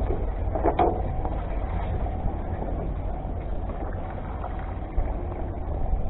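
Steady low rumble and water noise around a small open fishing boat at sea, with a brief knock a little under a second in.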